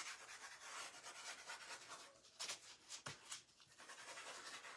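Faint, uneven rubbing and scratching of a craft applicator worked against a surface while distress ink is applied, with a few soft taps.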